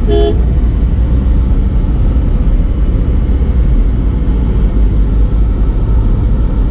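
Steady low rumble of a car driving along a town road, heard from inside the cabin. A short horn toot sounds right at the start.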